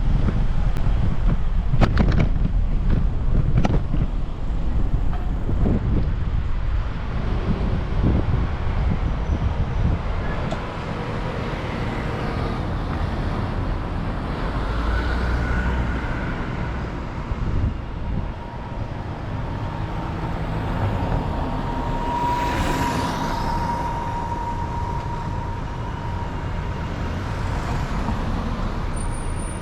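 Road traffic with motor vehicles passing, heavy wind rumble on the microphone in the first several seconds, and one vehicle sweeping past a little over two-thirds of the way through.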